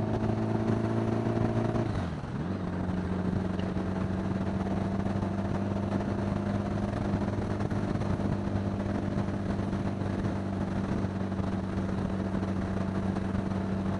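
1975 Honda Gold Wing's flat-four engine running, heard from the rider's helmet microphone. About two seconds in the revs dip sharply, then settle into a steady, slightly lower note.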